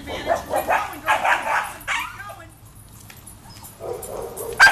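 Cockapoo barking and yipping in a rapid flurry over the first two seconds, then a few more loud barks near the end.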